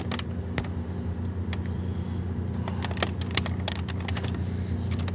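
Steady low electrical hum, with scattered small clicks and taps from small parts and tools being handled during a phone repair.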